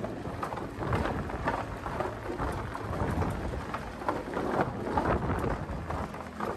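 Electric golf buggy driving over a wooden boardwalk: a continuous uneven rumble and rattle of its tyres rolling across the planks, with wind on the microphone from the open cab.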